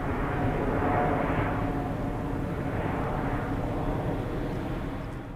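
Jet engine noise from a Boeing 777-200 airliner heading away overhead: a broad, steady rumble that slowly eases, then drops away quickly at the very end.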